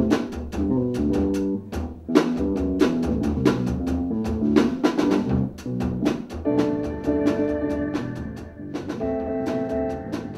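Improvised jazz trio playing: a drum kit struck busily throughout over double bass and keyboard lines that move quickly, with held chords coming in about six seconds in.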